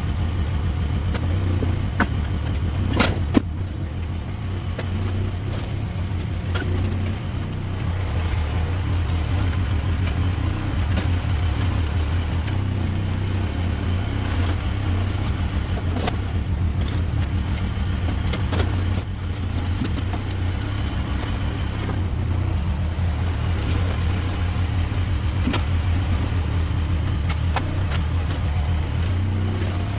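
Mini excavator engine running steadily while it works, with occasional sharp clanks as the claw strikes and moves rock, the loudest about three seconds in.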